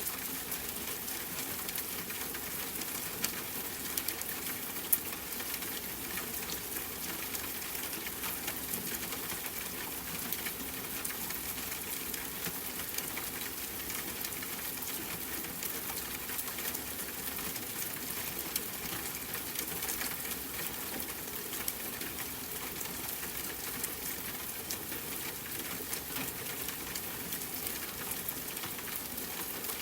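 Steady rain pattering, a dense hiss of fine drop ticks with a few louder single drops a few seconds in.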